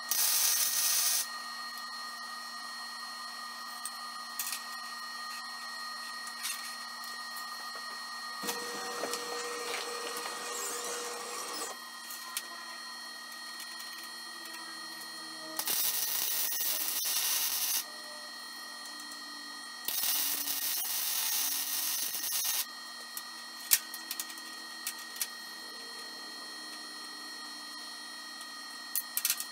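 Wire-feed (MIG) welder arc running in three short bursts while half-inch nuts are welded onto steel flat bar: one of about a second at the start, then two of about two seconds each a little past halfway. A steady faint high whine runs underneath, and a lower rumbling noise with a hum comes between the first and second bursts.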